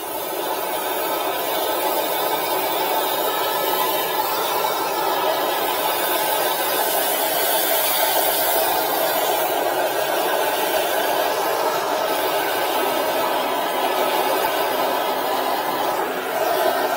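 High-pressure sewer jetter running, a steady loud rushing noise throughout.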